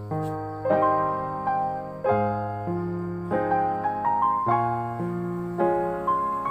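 Background piano music: a slow, gentle melody, with chords struck about once a second and left to fade.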